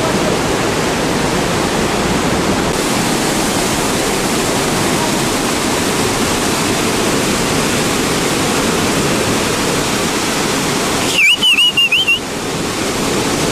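Steady rushing roar of a large waterfall plunging into a gorge. Near the end a brief high, warbling whistle cuts in for about a second.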